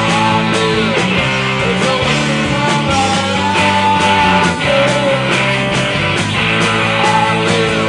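Live rock band playing: electric guitars, bass and a drum kit, with a lead line of held notes that bend in pitch over a steady beat.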